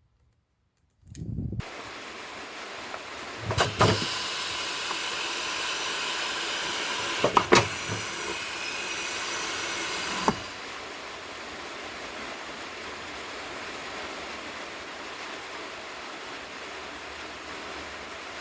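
Compressed air hissing in a pneumatic tyre changer as it is worked, with a couple of sharp knocks about 3.5 and 7.5 seconds in. The hiss drops about 10 seconds in to a quieter steady hiss.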